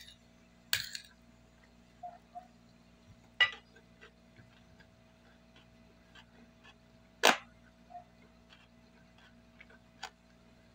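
Quiet chewing of a mouthful of pasta and beans: faint, evenly spaced mouth clicks, with a few sharper clicks standing out, the loudest about seven seconds in.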